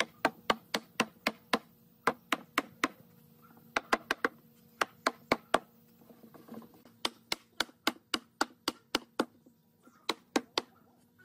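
Sharp taps struck on a wooden table frame, coming in quick runs of four to six strikes at about three a second, with short pauses between runs.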